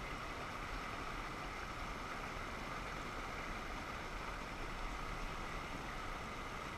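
Steady rush of fast, broken river water pouring over rocks, heard close from mid-stream.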